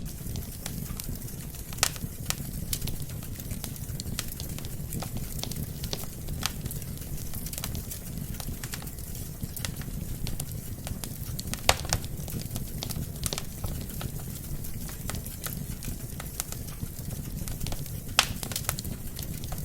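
Wood fire burning in a fireplace: a steady low rumble of flames with irregular crackles and sharp pops from the burning logs, the loudest pops about 2, 12 and 18 seconds in.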